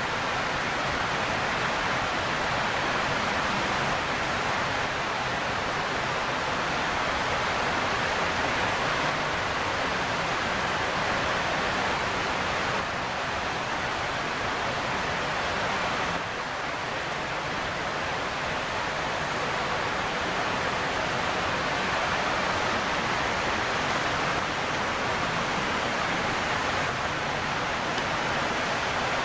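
Steady, even rushing hiss of a heat gun's blower running, as used to heat-shrink window film to the curve of a rear window.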